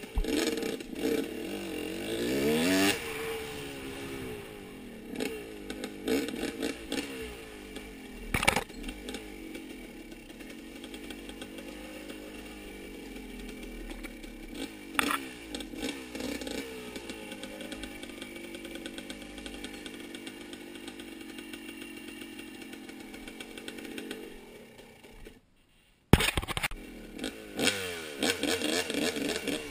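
Off-road vehicle engine revving up and down under load, with sharp knocks about 8 and 15 seconds in. Near the end it drops out to near silence for about a second, then comes back with a loud clack.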